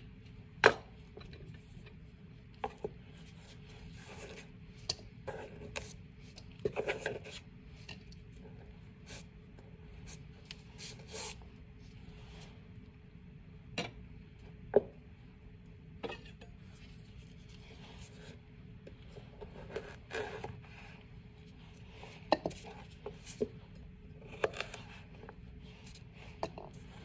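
Vegetable peeler rasping down a carrot at first, then scattered knocks, taps and scrapes on a cutting board as the carrot and tools are handled. There is a sharp click about a second in and another near the middle.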